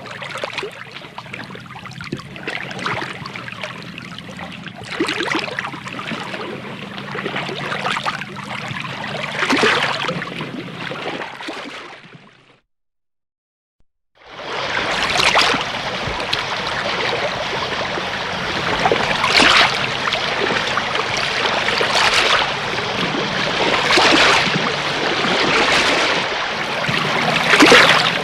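Running, splashing water with recurring louder splashes; it fades out about twelve seconds in, and after a short silence a second, louder water recording begins.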